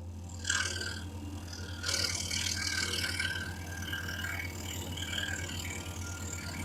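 Excalibur EX21 scroll saw running with a steady hum while its fine blade cuts through wood flooring; the cutting noise picks up about half a second in and again near two seconds.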